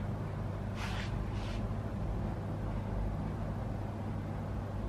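Steady low mechanical hum with several steady low tones, and two brief soft hisses about a second in.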